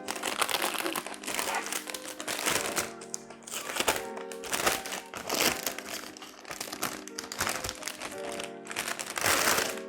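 Plastic packaging crinkling and rustling as PC parts are unwrapped, over background music with sustained tones.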